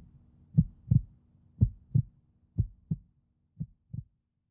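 Heartbeat sound effect: low double thumps, about one pair a second, growing fainter. A faint low hum runs beneath it and stops near the end.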